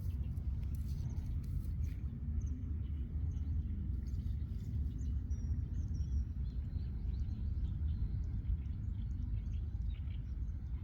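Wind buffeting the microphone, a steady low rumble, with faint short bird chirps in the background from about four seconds in.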